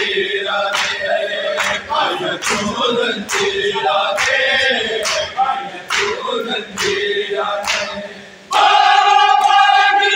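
A crowd of men chanting a noha in unison, with a sharp beat of hands striking chests in matam about every 0.8 s. Near the end the crowd breaks into a loud, held shout.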